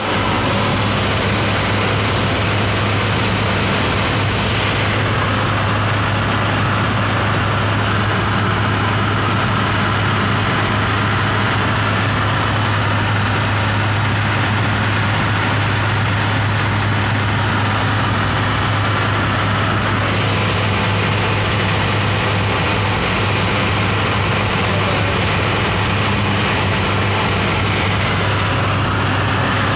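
Cab noise of a vehicle cruising at highway speed: a steady low engine hum under a constant rush of road and wind noise.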